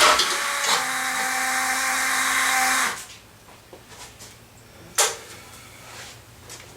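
Sand rail's Chevy 3.1L V6 running with a steady whine, then shut off abruptly about three seconds in; a sharp click follows about two seconds later. It is still not running right after a new engine computer, leaving the coil pack as the suspect.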